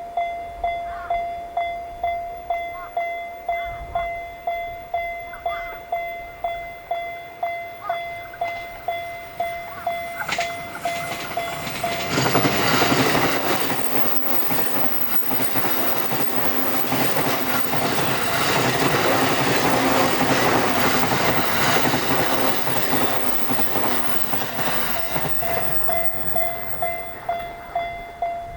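Japanese level-crossing warning bell ringing in steady electronic strikes, about two a second. About 12 seconds in, a JR Sobu Line train passes over the crossing, and for some fourteen seconds its wheel and track noise drowns out the bell. The bell then carries on ringing as the train clears.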